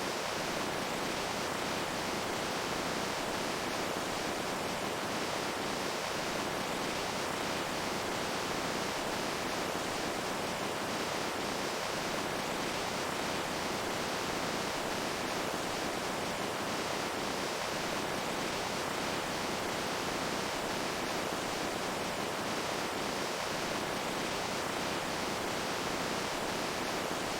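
Running water making a steady, even rush with no breaks or changes.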